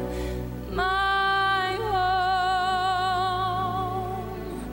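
Background music from a song recording: a singing voice holds one long note with vibrato from about a second in, over steady accompaniment. No fireworks bangs are heard.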